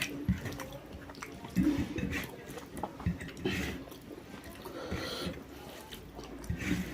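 Close-up eating sounds: irregular wet chewing, smacking and squishing of rice and curry in the mouth.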